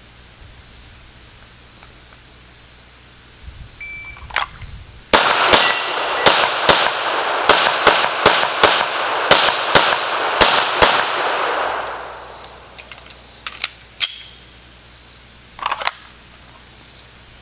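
A shot timer's start beep, then about a second and a half later a fast string of 9mm shots from a Sig Sauer P320 pistol, about six seconds of rapid fire with an echo trailing off after the last shot.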